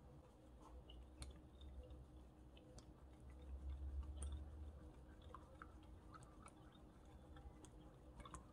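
Chopsticks beating raw eggs in a ceramic bowl: faint wet squishing with irregular light clicks of the chopsticks against the bowl.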